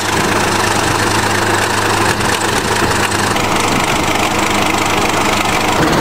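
Old crawler bulldozer's engine idling steadily.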